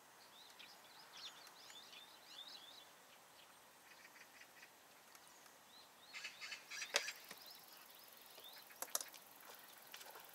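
Faint outdoor ambience with small birds chirping in short, quick high calls, and a couple of sharp clicks in the second half.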